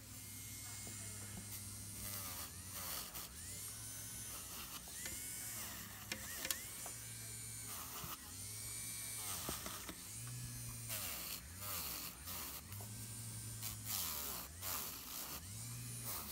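Electric nail drill running, its bit worked over the fingernails and the skin beside them in a finishing pass of a dry drill manicure. The motor hum comes and goes in short stretches, and its pitch dips and recovers again and again as the bit is pressed on. Scratchy bursts come from the bit rubbing the nail.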